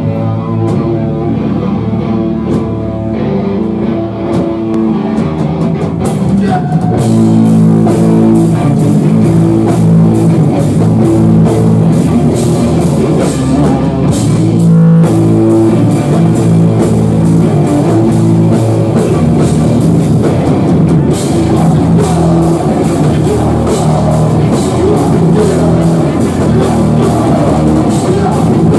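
Heavy rock band playing live through a club PA, heard from the crowd: guitars and bass over a drum kit. The full drums with cymbals come in about seven seconds in, and there is a short break about halfway before the band comes back in.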